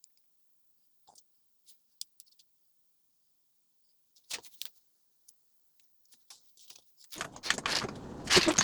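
Light clicks and ticks of small parts being handled, then about seven seconds in a busier clatter and rattle of handling.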